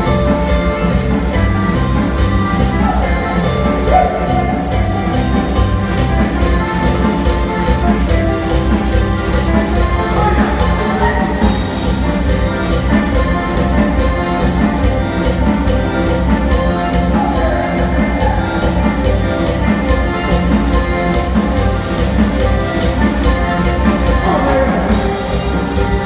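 Live tropical cumbia band playing dance music at full volume: accordion and electric guitars over a steady, driving percussion beat.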